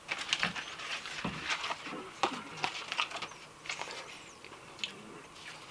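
Cardboard advent calendar door being picked at and opened by hand: a string of small, irregular scratches and clicks.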